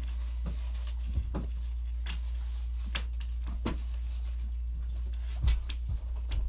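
Scattered light clicks and knocks of things being handled, over a steady low hum, with a few duller thumps about five and a half seconds in.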